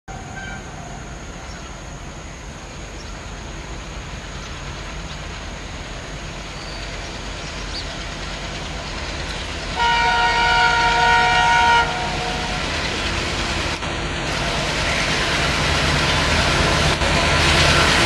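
Twin ALCO WDM-3A diesel locomotives approaching, the low chugging of their 16-cylinder engines growing steadily louder. About ten seconds in, the locomotive sounds a loud, weird-sounding multi-tone horn for about two seconds, which cuts off sharply.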